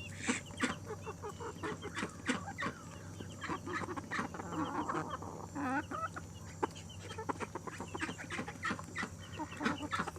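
A flock of chickens clucking and chattering excitedly over food, with many short sharp taps and clicks among the calls.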